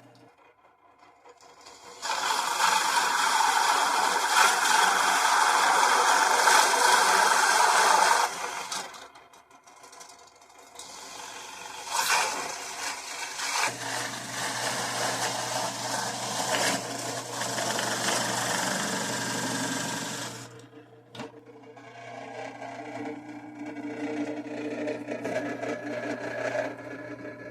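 Bauer benchtop drill press running with a small step drill bit cutting holes through mini bottle gourd shells. The loudest cutting spell starts about two seconds in and lasts about six seconds, followed after a short lull by further drilling over a steady motor hum.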